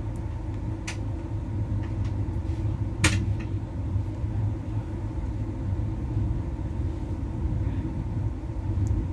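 Steady low rumble of a passenger train running along the track, heard from inside the coach, with a sharp knock about three seconds in and a few fainter clicks.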